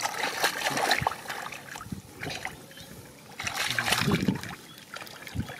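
Shallow muddy water sloshing and splashing as bare feet and hands churn through it, in irregular bursts, with a louder run of splashing about three and a half to four seconds in.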